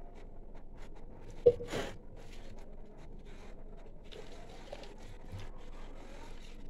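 Plastic jar and glass mixing bowl being handled: a single sharp knock with a brief ring about a second and a half in, then faint scraping and rustling as bitter gourd pickle is scooped by hand into the jar.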